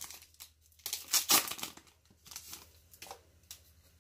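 Foil wrapper of a 2018 Leaf football card pack crinkling and tearing as it is opened by hand, in several uneven bursts, the loudest about a second in.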